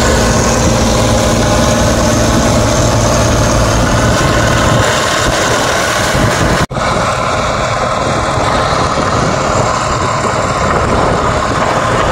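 Bizon combine harvester running steadily while harvesting, its engine and threshing machinery at work. About six and a half seconds in, the sound drops out for an instant and comes back duller.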